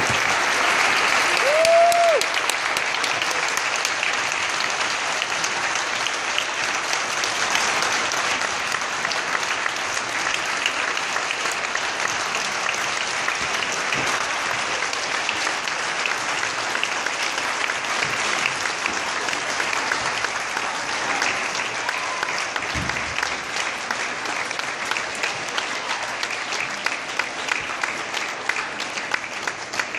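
Large audience applauding at the end of an orchestra piece, a dense steady clapping that eases slightly toward the end, with one short pitched call rising and falling about two seconds in.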